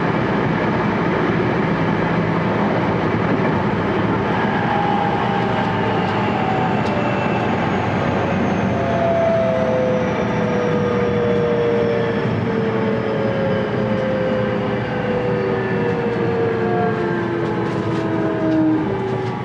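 Hitachi VVVF inverter and traction motors of a JR West 223 series 1000 electric train, heard from inside the motor car over the steady rumble of running on the rails. The motor whine, several tones together that closely resemble a Tokyo Metro 6000 series Hitachi three-level inverter, glides steadily down in pitch from a few seconds in as the train slows.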